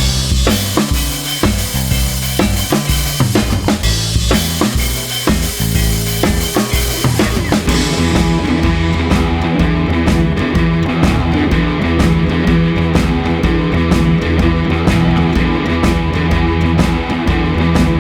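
Background rock music: a drum beat with a bass line, changing about halfway through to a denser section of sustained pitched tones.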